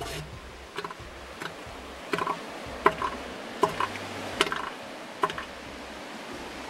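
Bull northern elephant seal giving its threat call: a rhythmic series of about ten sharp, clapping pulses, roughly one every two-thirds of a second.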